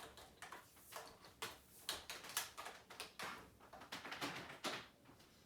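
Quiet, uneven light clicks and knocks of equipment being handled.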